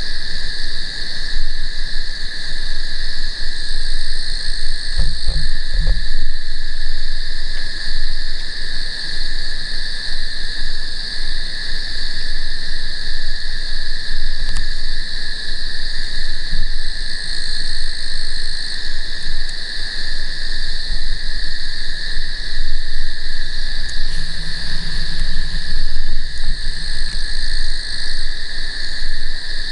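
A night chorus of frogs and insects, a steady pair of high-pitched trilling calls at two different pitches with no let-up, and a couple of low thumps about five seconds in.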